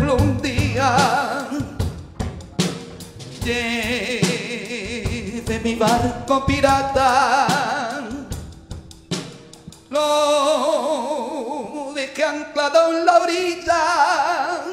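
Live band playing a slow romantic ballad: a wavering lead melody with strong vibrato over drum kit, with sharp snare and rimshot hits.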